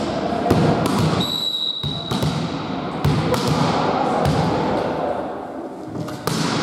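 A volleyball is struck and bounced in a series of sharp thuds that echo around the sports hall. About a second in, the referee gives a whistle blast lasting just under a second, the signal for play.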